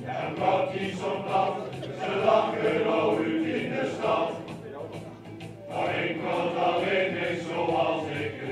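A men's choir singing together, led by a conductor; the singing dips briefly about five seconds in, then comes back in.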